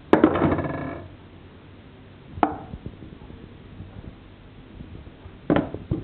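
Handling sounds while jointing a raw chicken: a clatter on the stainless-steel sink drainer that rings on for most of a second, a single sharp knock a couple of seconds later, and two or three quick knocks near the end.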